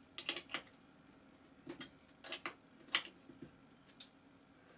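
Small steel spanner clicking against a nut and washer while a lock nut is put on a coach bolt: a quick run of sharp metallic clicks in the first half second, then scattered single clicks, the loudest about three seconds in.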